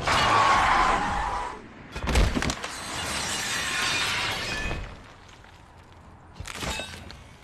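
Film sound effects: a car tyre screeching on the road, a crash about two seconds in, then a metal hand scraping along the asphalt for a couple of seconds. A shorter hit comes near the end over quieter road noise.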